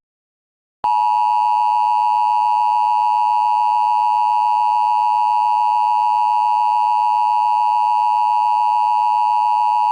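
Emergency Alert System attention signal: a loud, steady two-tone alarm that starts about a second in and holds without a break.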